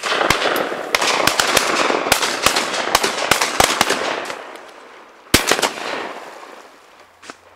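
Volley of shotgun fire from several guns: many shots in quick succession, overlapping and echoing for about four and a half seconds, then two loud shots close together a little past five seconds and a single shot near the end.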